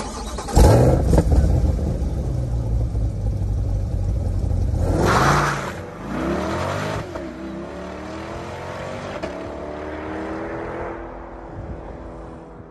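C8 Corvette's V8 starting with a loud burst, then idling. About five seconds in it revs hard and accelerates away, its pitch climbing and dropping with each upshift as it fades into the distance.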